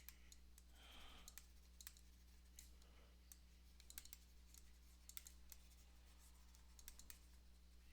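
Near silence with faint, irregular clicks scattered throughout, over a steady low electrical hum.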